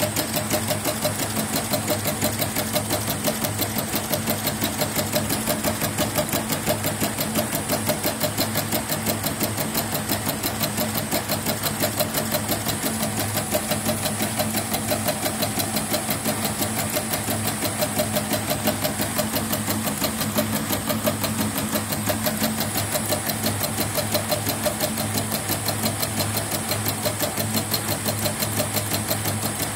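CNY E900 portable embroidery machine stitching a test design, its needle bar and embroidery frame working at a fast, even rhythm. It is a test run after repairing a machine that was completely unresponsive and had a stiff Y-axis frame movement.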